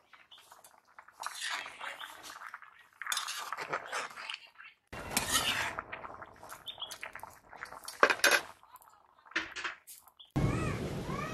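Metal ladle clinking and scraping against a wok (kadai) of boiling curry, in short separate bouts, with one sharp clink about eight seconds in. Near the end an animal calls twice.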